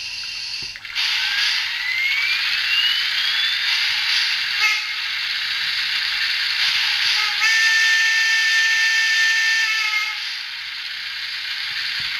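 Recorded steam sounds of a Shay geared steam locomotive played by a DCC sound decoder through an On30 model's small speaker: a steady steam hiss with a whine rising in pitch during the first few seconds, a short whistle toot about four and a half seconds in, then a long whistle blast of about two and a half seconds.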